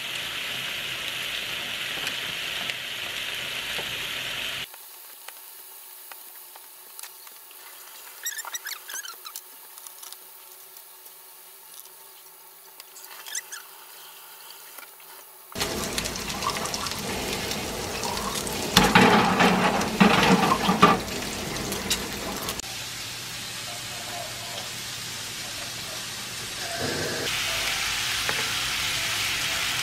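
Pork belly and mushrooms sizzling in a frying pan, with scrapes and clatters of metal tongs turning the meat, loudest about two-thirds through. Near the end, pork belly sizzles again in a pan alongside kimchi and enoki mushrooms.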